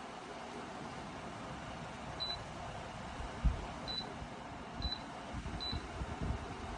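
Dreo Cruiser Pro tower fan running with a steady rush of air, giving four short high beeps over a few seconds as its settings are changed, with a few soft handling thumps.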